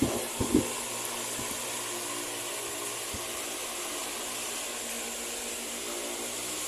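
Tron Jattron 250 W wall fan running steadily: an even rush of air with a faint motor hum.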